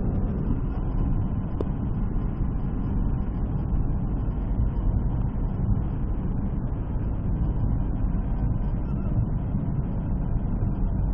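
Steady low rumble of a vehicle driving: engine and road noise with no change in pace.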